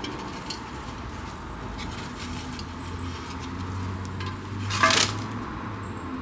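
Potting soil being scooped and moved around in a pot by hand, with light scraping and small clicks, one louder rustling scrape about five seconds in, and a low steady hum underneath.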